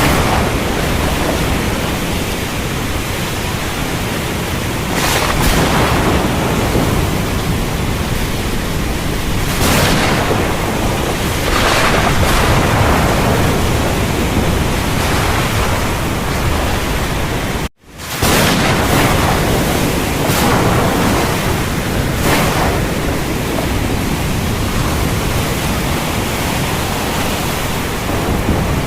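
Heavy, steady rain hiss with surging swells every few seconds, from a rainstorm soundscape. The sound cuts out abruptly for a split second about eighteen seconds in, then comes straight back.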